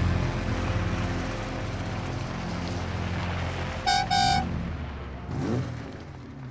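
Car engine running, fading away, with a car horn giving two short toots about four seconds in.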